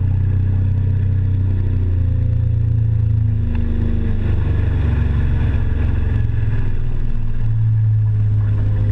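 Motorboat engine running steadily under way, a low drone that shifts slightly in pitch about four seconds in and again near the end.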